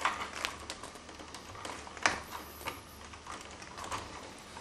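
Linesman's pliers twisting four stripped 14-gauge solid copper neutral wires together: irregular clicks and scrapes of metal jaws on copper, the sharpest about two seconds in.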